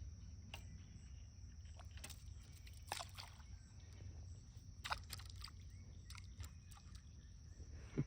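Faint small splashes of water at the surface, sharpest about three and five seconds in, over a low steady rumble.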